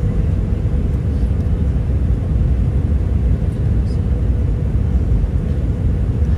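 Steady low rumble of an Airbus A319-100 heard from inside the passenger cabin: engine and airframe noise with a faint constant hum above it.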